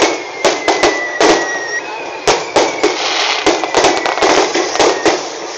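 Fireworks display: a rapid, irregular string of sharp bangs and cracks from bursting shells over a crackling hiss, with a faint high whistle that slowly falls in pitch, twice in a row.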